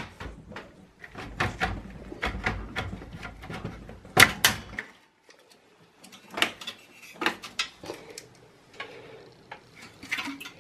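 Scattered plastic clicks, knocks and rattles as the black plastic front fan bracket with its 120 mm fan is unclipped and pulled out of a Dell Precision T5500 workstation case. A low rumble runs under the first half, then the clicks turn sparser and fainter.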